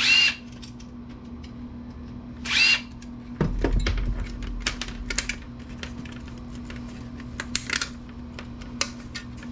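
Sheet-steel computer parts clanking with a short metallic ring, twice. Then a power screwdriver or drill runs briefly, followed by scattered clicks and rattles of screws and metal as the desktop case is taken apart.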